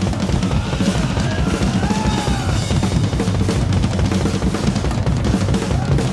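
Rock drum kit played fast and hard in a solo: a dense, unbroken stream of snare, tom and bass-drum strokes with cymbal wash.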